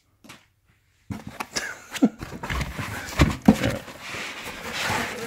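After about a second of near silence, handling noise: a Blu-ray player in a cloth dust bag rustling against its foam packaging, with several dull knocks as it is shifted in the cardboard box.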